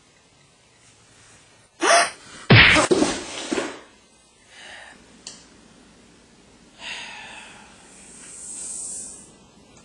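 A sudden loud scuffle about two seconds in: a sharp vocal outburst and a heavy thud of a blow or a body hitting the floor. A couple of fainter knocks follow, then a long breathy gasp swells and fades near the end.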